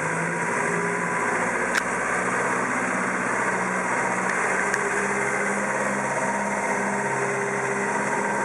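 Diesel engine of a Manitou M50-4 rough-terrain forklift running steadily at low revs as the machine drives past and away, with two sharp ticks, about two and five seconds in.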